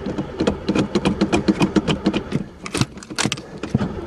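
1960 Pontiac engine being turned over by the starter without firing: an even chugging at about eight beats a second for a couple of seconds, then a few separate knocks. It won't start; the owner suspects it has no spark.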